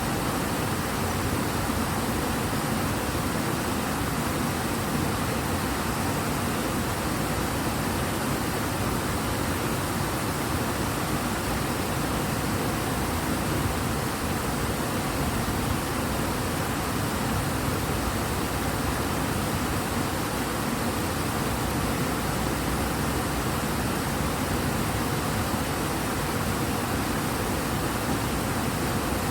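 The Ebro river running high and fast: a steady, even rush of water.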